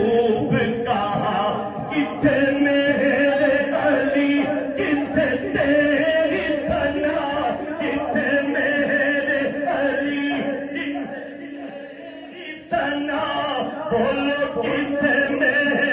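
Male devotional chanting of durood (blessings on the Prophet), sung with long held notes. It sinks lower about three quarters of the way through and comes back abruptly a moment later.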